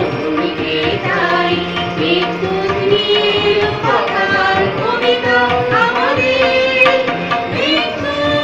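Group of singers performing a song to tabla and harmonium accompaniment.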